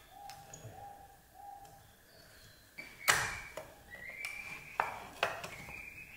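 Small metal clicks and a ping from the parts of a rusty antique child's sewing machine being taken apart by hand, the sharpest click about three seconds in and a few smaller ones after it. Faint repeated bird calls sound underneath.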